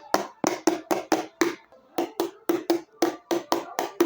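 Rapid tapping by hand on a container packed with macaroni, about four or five sharp knocks a second with a short pause midway, done to loosen the moulded macaroni before it is turned out.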